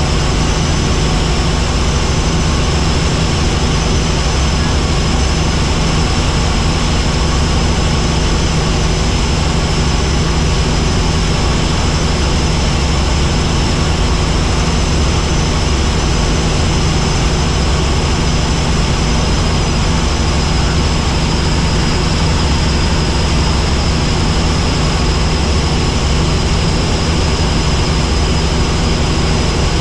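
Helicopter in flight: a loud, steady drone of rotor and turbine with a thin high whine running through it.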